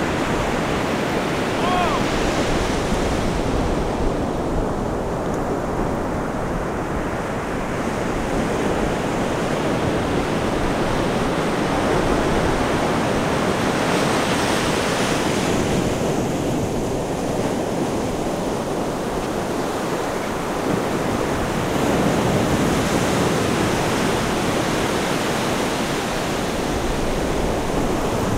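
Ocean surf breaking on a sandy beach: a steady rushing wash that swells and eases as each set of waves comes in.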